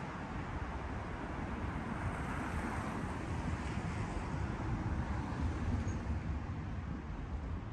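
Steady city street traffic noise with a low rumble.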